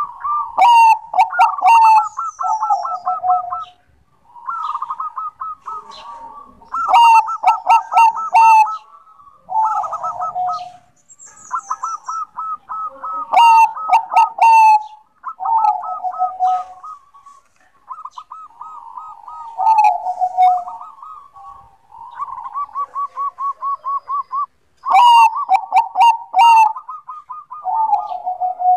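Zebra dove (perkutut Bangkok) singing steadily: phrase after phrase of rapid, trilled cooing notes, each phrase a second or two long with short pauses between. A few phrases open with sharp clicking notes.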